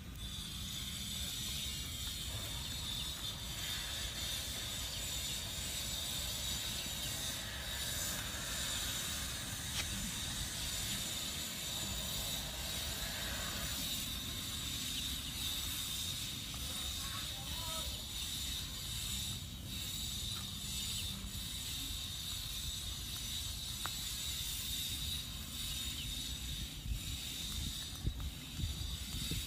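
Steady high-pitched insect chorus, an unbroken buzzing drone, with a few soft clicks and knocks near the end.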